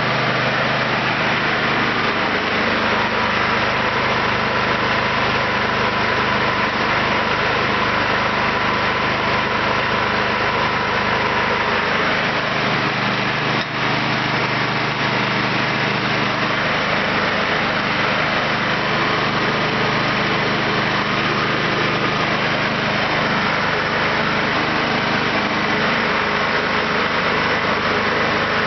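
Kentavr 7807 snowthrower's petrol engine running steadily, its carburetor freshly cleaned and the no-start fault cured.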